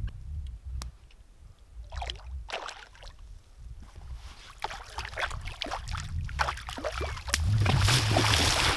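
Water splashing loudly as a wading angler steps off a rock into shallow lake water with a landing net, starting about seven seconds in. Before that there are a few short splashes and clicks over a low wind rumble on the microphone.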